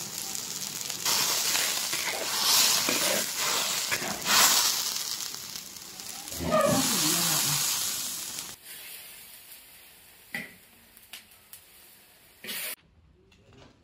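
Greens cooking in a hot iron wok of boiling water, hissing and sizzling loudly with steam for the first eight seconds or so, then quieter. A few sharp clicks come near the end.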